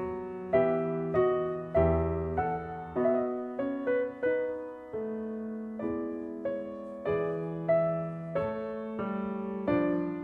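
Background music: a slow, gentle piano melody, notes struck about twice a second and left to ring and fade.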